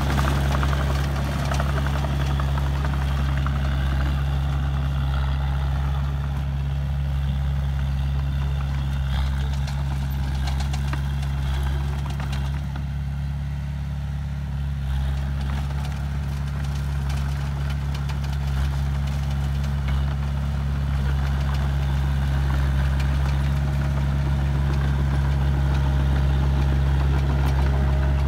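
Komatsu D20A crawler dozer's diesel engine running steadily under load as it pushes soil. It grows a little fainter about halfway through and louder again near the end.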